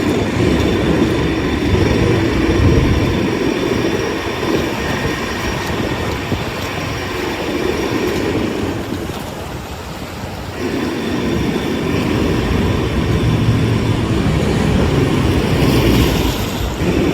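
Loud, steady rumble of passing vehicles on a city street, easing off briefly about nine seconds in before building up again.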